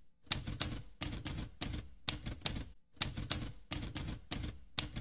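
Typewriter keystroke sound effect: sharp key clicks, each with a low thud, in quick runs of about four or five a second with brief pauses between runs.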